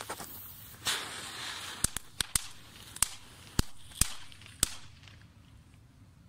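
A Comet Spiderlights firework bursts into a hissing spray of sparks just under a second in, then gives about seven sharp crackling pops over the next three seconds before dying out. It is a short burn.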